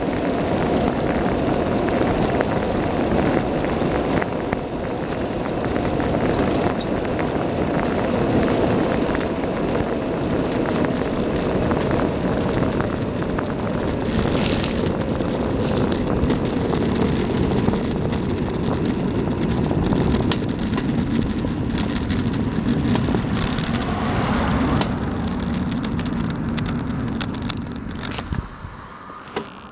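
Wind rushing over the microphone and the hum of bicycle tyres rolling fast downhill on asphalt, the sound slowly dropping in pitch as the bike slows. It falls away sharply near the end as the bike comes to a stop.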